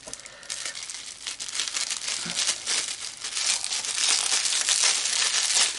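Plastic bubble wrap crinkling and rustling as it is handled and unwrapped, louder in the second half.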